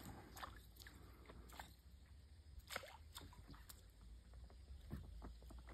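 Near silence: faint outdoor quiet with a few scattered soft clicks and ticks at irregular times.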